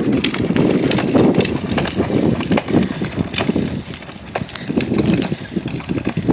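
Outdoor movement noise as a child's bicycle sets off fast: a rushing haze with many irregular clicks and scuffs.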